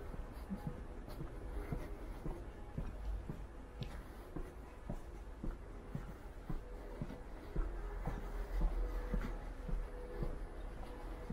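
Footsteps of a person walking, short soft knocks about two a second, over a steady low rumble of street background that grows a little louder near the end.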